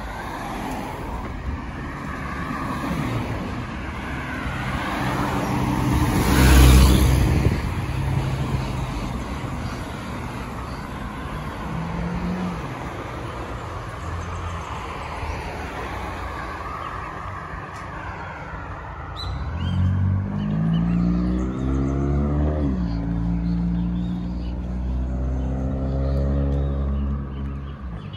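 Road traffic on a main road. One vehicle passes close about six seconds in. Later an engine climbs in pitch as it accelerates, changes gear, and climbs again, over a steady traffic hum.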